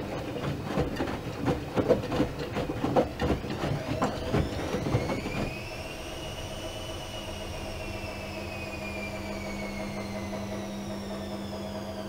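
Miele Supertronic W5000 front-loading washing machine in a boil wash: the drum turns and wet laundry and water slosh and thud inside it, then about five and a half seconds in the tumbling stops, leaving a steady machine hum with a faint whine that slowly rises and then falls in pitch.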